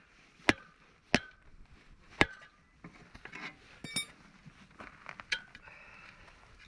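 Sharp metal-on-metal knocks, three of them about a second apart, followed by lighter clinks and rattles of metal tools, one with a short ring.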